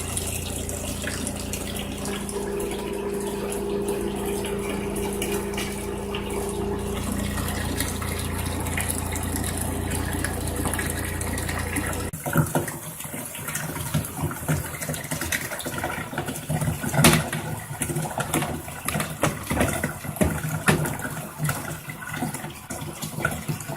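Twin-tub washing machine's spin motor humming steadily while water runs into the wash tub. About halfway through, the motor hum cuts off, leaving water noise and irregular knocks and clatter.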